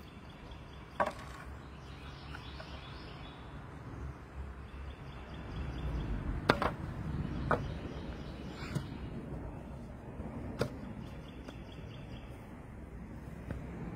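Cedar fence boards being handled, knocking against each other and the ground: a few sharp wooden knocks at uneven intervals, the loudest about six and a half seconds in, over a steady low rumble.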